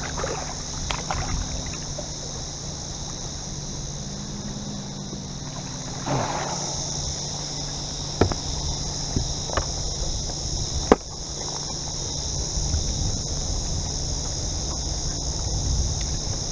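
A big flathead in a landing net being lifted from the water onto a boat deck: a swish of water about six seconds in, then a few sharp knocks of the net and fish on the deck. A steady high insect drone and a low hum run underneath.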